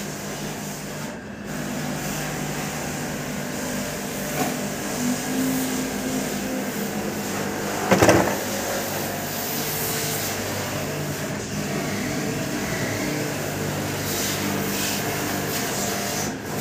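Steady mechanical hum with a sudden loud noise about eight seconds in.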